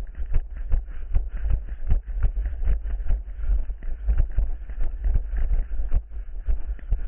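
Running footsteps on rough ground: a quick, uneven run of thumps and knocks over a steady low rumble.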